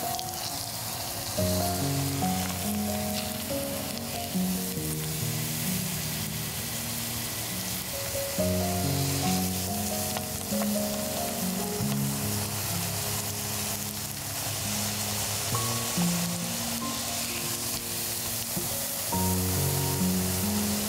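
A grated-potato hash brown sizzling as it fries in oil and butter in a pan, a steady crackling hiss, over background music with a slow melody.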